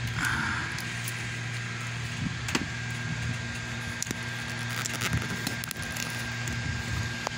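A steady low mechanical hum with a faint thin whine above it, like a fan or motor running in the room, with a few light clicks and knocks from handling about two and a half seconds in, at four seconds and near the end.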